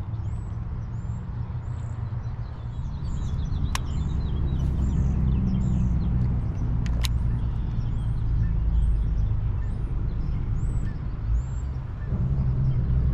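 A low, steady motor rumble, with a bird repeating short high chirps about once a second over it. Two sharp clicks sound, about a third of the way in and again about halfway through.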